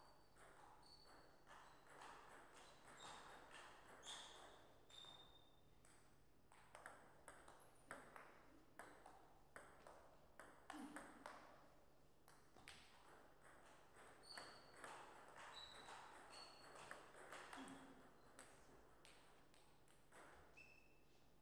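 Faint, quick clicks of a table tennis ball striking the bats and bouncing on the table, in two back-and-forth rallies.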